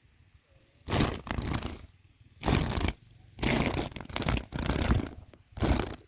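Repeated bursts of rustling, crinkling noise, about one a second, each lasting around half a second.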